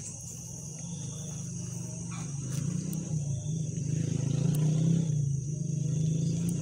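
Crickets chirping steadily, under a low droning hum that grows louder through the middle and eases slightly near the end.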